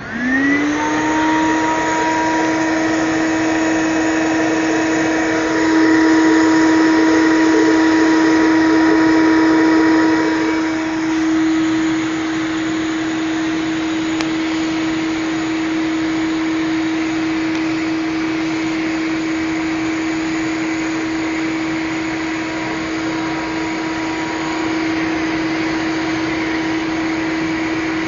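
Paint-spraying machine's motor winding up to speed at the start, then running steadily at full power while clearcoat is sprayed; its sound thins a little about ten seconds in and carries on.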